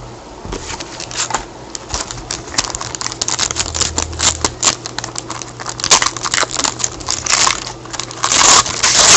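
Hockey card pack wrapper crinkling and being torn open, with cards being handled and flicked through. The crackling grows busier and louder in the second half.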